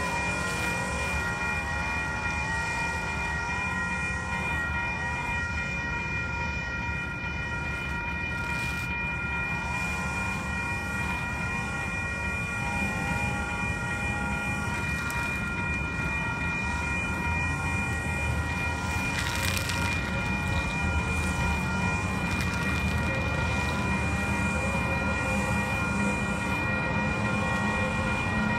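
WCH Type-2 electronic railway crossing bell ringing continuously with the gates down, warning of an approaching train. A Siemens SD160NG light-rail train's rumble grows louder toward the end as it nears the crossing.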